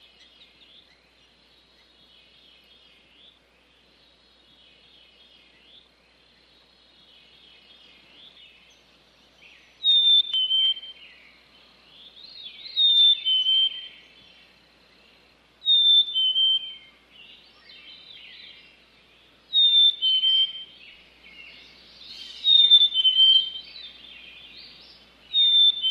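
Songbirds singing: a faint chorus of high chirps, then from about ten seconds in one bird repeats a loud whistled phrase, a high note stepping down to a lower one followed by a short twitter, about every three seconds.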